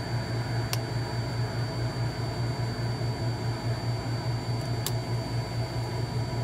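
Steady low machine hum, like a running fan, with a faint high whine, broken by two short sharp clicks about four seconds apart.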